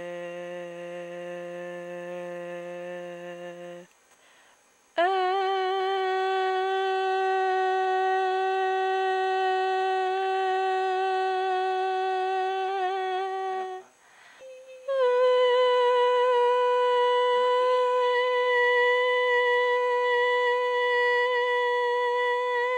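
A woman's voice holding three long, steady notes, each higher than the last, with a short break before the second and third. The voice was recorded while her vocal cords were filmed through a laryngoscope.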